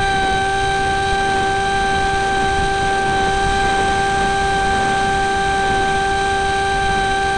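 Electric motor and propeller of a Slipstream flying wing running at steady throttle, a constant whine that holds one pitch, with wind rushing over the onboard camera's microphone.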